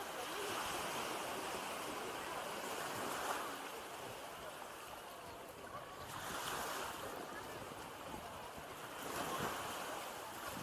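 Small waves breaking in the shallows and washing up a sandy beach, the hiss of the surf swelling and easing about three times.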